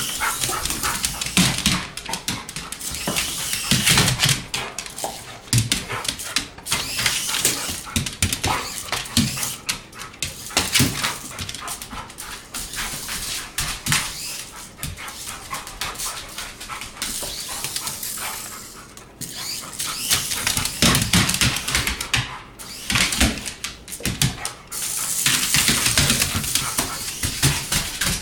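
A dog barking and growling in short repeated bursts while chasing a radio-controlled toy car, over a rough high-pitched noise from the car that swells and drops several times.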